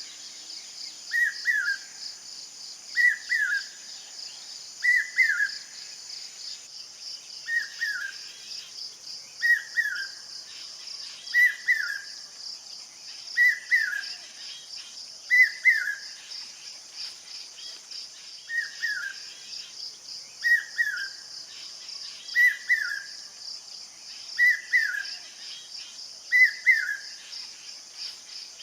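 Common hawk-cuckoo (brainfever bird) calling its short three-note "brain-fever" phrase over and over, about every two seconds, each note sliding down in pitch. A steady high insect drone runs underneath.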